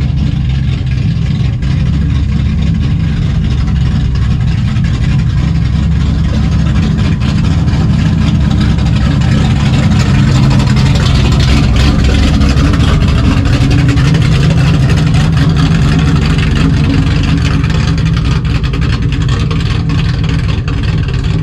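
Classic cars' engines rumbling as the cars roll slowly past one after another. The rumble is loudest about halfway through, as a supercharged 1966 Chevelle SS with a big-block V8 goes by.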